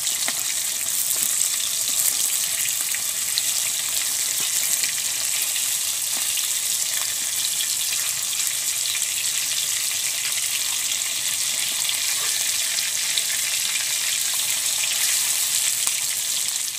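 Hilsa fish pieces frying in hot mustard oil in a metal kadai: a steady sizzle with small crackles, the fish being half-fried.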